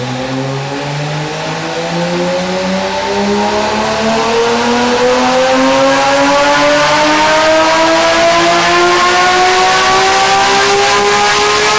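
Porsche 911 GT3 RS flat-six engine revving loudly, its note climbing slowly and steadily in pitch without a break and growing louder over the first few seconds.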